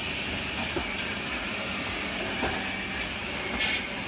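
Powered log saw running with a steady high hiss and a low hum, with a few sharp knocks and rattles.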